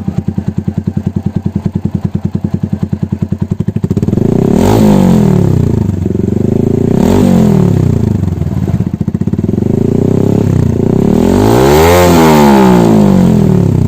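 TVS Apache RTR 160's single-cylinder engine running through an aftermarket SC Project-style slip-on silencer: an even, pulsing idle, then revved three times from about four seconds in, each rev rising and falling back, the last one the longest and highest.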